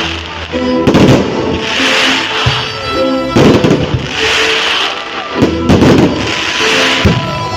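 Fireworks going off in repeated bursts about every two and a half seconds, each a burst of bangs and crackle trailing into a hiss, over background music.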